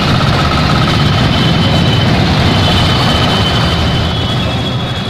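Street traffic: vehicle engines running under a dense, steady hiss, with the sound starting to fade near the end.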